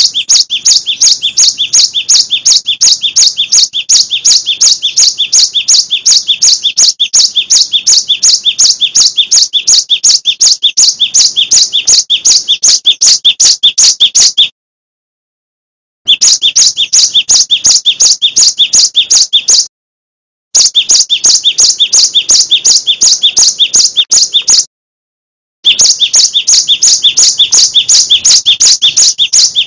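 Cinereous tit (gelatik batu) singing loudly: a fast, even string of high repeated notes, several a second. The song breaks off abruptly three times for about a second, then picks up again.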